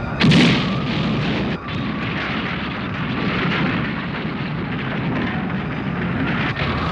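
Anime sound effect of a huge tire-wheeled battleship rolling over the ground: a loud crash just after the start, then continuous heavy rumbling.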